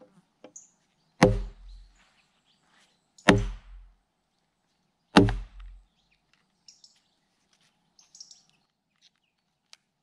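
Wooden mallet striking the back of an axe whose blade is set into a peeled log, driving it in along the line where the log is being split lengthwise: three heavy knocks about two seconds apart, each dying away briefly.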